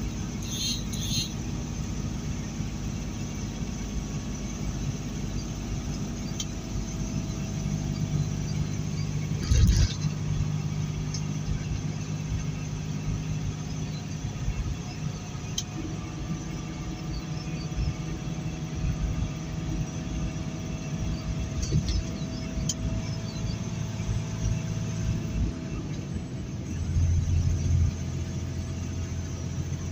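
Loaded semi-truck's engine running steadily with road noise, heard from inside the cab. There is a short sharp knock about ten seconds in, and the engine drone gets louder and deeper near the end.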